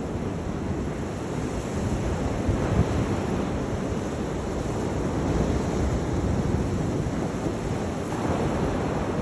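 Sea waves surging and washing, with wind buffeting the microphone in a steady low rumble; the wash swells a few times.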